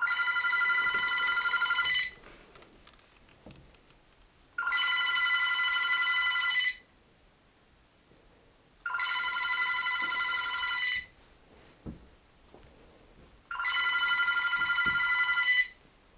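Rotary-dial telephone ringing: four rings of about two seconds each, with pauses of roughly two and a half seconds between them.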